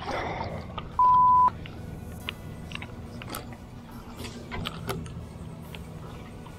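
A snook splashes at the water's surface as it strikes at a soft-plastic lure. About a second in, a steady high censor bleep lasts half a second and is the loudest sound, followed by faint scattered clicks.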